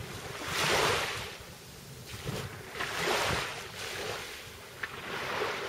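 Small waves washing in on the shore, swelling and fading about every two seconds, with wind on the microphone.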